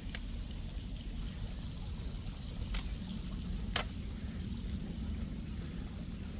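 Running water of a mountain stream, a steady rushing, with three sharp clicks, the loudest about two-thirds of the way in.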